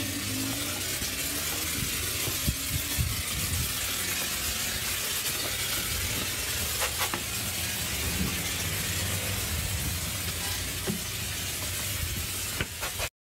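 Steady hissing noise over a low rumble, with a few soft knocks and clicks. It cuts off abruptly near the end.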